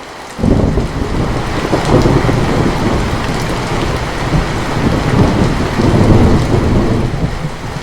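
Steady rain falling, with a loud, deep rolling rumble of thunder that breaks in suddenly about half a second in and keeps rumbling, easing slightly near the end.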